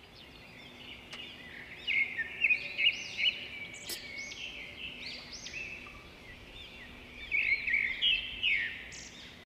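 Birds chirping in a rural ambience: short, quick chirps in clusters, loudest about two seconds in and again near the end, over a faint steady hum.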